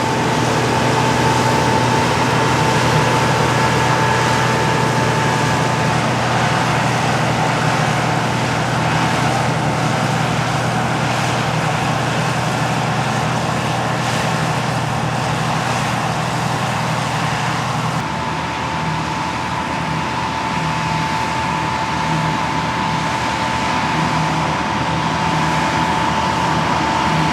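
Deutz-Fahr M2780H combine harvester running, its air-cooled six-cylinder Deutz BF6L 913 diesel giving a steady low drone under a high whine. The tone of the drone changes about 18 seconds in.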